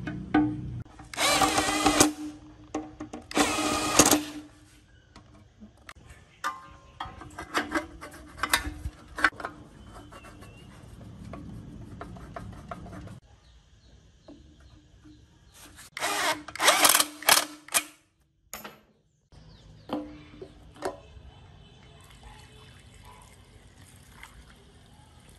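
Cordless drill/driver whirring in several short bursts of a second or two, driving screws, with small metal clicks and knocks of parts and tools being handled in between.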